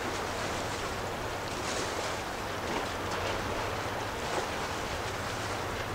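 Steady wash of choppy river water and wind, with a low, steady hum underneath.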